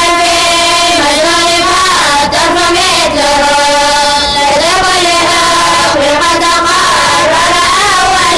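A group of students chanting a didactic Arabic grammar poem (a matn) in unison, girls' and men's voices together in one slow, gliding melody with short breaths between lines.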